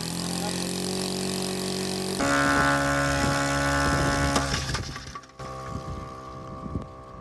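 An engine running steadily, its pitch changing abruptly about two seconds in and again past five seconds, with scattered clicks.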